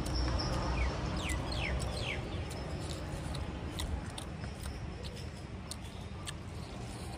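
Close chewing and mouth clicks from someone eating rice and noodles by hand. Outdoors, a bird gives several quick falling chirps about one to two seconds in, over a low rumble that fades after the first few seconds.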